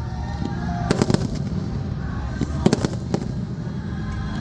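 Fireworks going off: sharp bangs in quick clusters, three about a second in and two or three more near the three-second mark, over music from a show.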